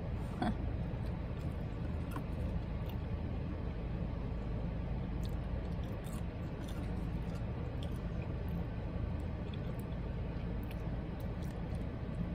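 A person chewing food, with small mouth sounds and a few faint clicks, over a steady low hum inside a car.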